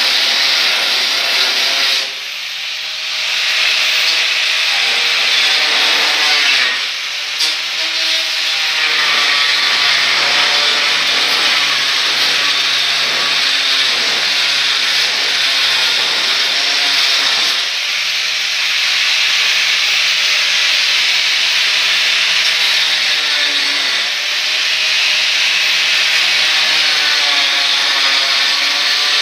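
Corded angle grinder cutting into wall tile and grout along the ceiling line. The motor's pitch shifts as it works under load, and it eases off briefly about two seconds in and again near seven seconds.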